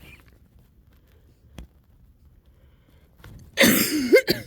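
A wet cough near the end: one hard cough followed straight away by a second, shorter one. It is a chest cough loosening phlegm as the lungs start to clear.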